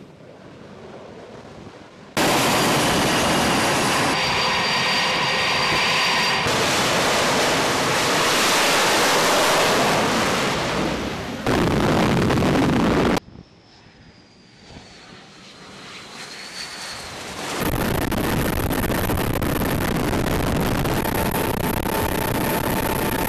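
Jet aircraft noise on a carrier flight deck, in several loud stretches of steady engine noise with a high whine that start and stop abruptly, with quieter stretches between them.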